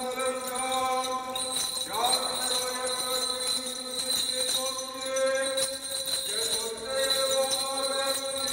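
Armenian liturgical chant sung in long held notes, with small bells jingling over it, as from a censer or a bell-hung liturgical fan.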